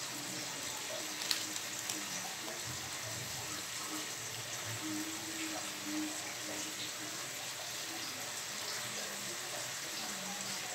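Pork steak simmering in soy sauce in an open wok: a steady sizzle, with a couple of faint clicks about a second and a half in.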